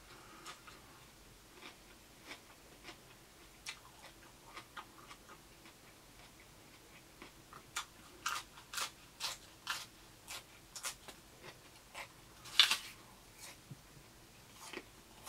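Close-up chewing of crisp raw vegetables, with scattered soft mouth clicks at first, then a run of sharp crunches over several seconds and one louder crunch a little after that.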